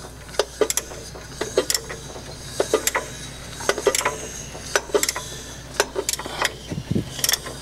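A ratchet on the crankshaft bolt clicking in short irregular runs as it is worked by hand, slowly turning the Ford 289 engine over toward top dead center on the number one cylinder's compression stroke.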